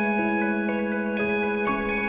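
Ambient post-rock instrumental music: a run of overlapping sustained notes, a new one entering every few tenths of a second, over a held low note at a steady level.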